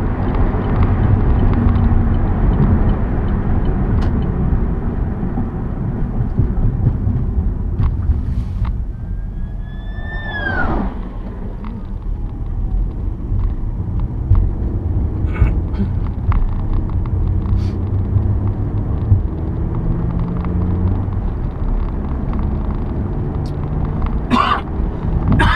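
Steady road and engine rumble of a car driving on a highway. About ten seconds in, a passing vehicle's whine rises slightly and then drops sharply in pitch as it goes by. There are a few short knocks near the end.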